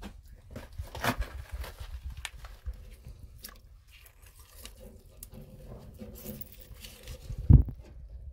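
Gloved hand crunching and scraping through wet dirt and loose rock, digging out chunks of fire opal, with irregular clicks of stone on stone. One louder thump comes near the end.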